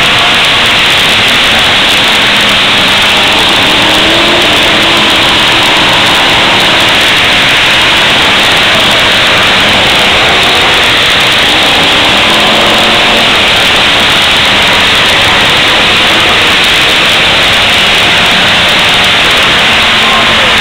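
Demolition derby car engines revving, heard as a loud, steady, distorted wash of noise with faint engine pitches rising and falling through it.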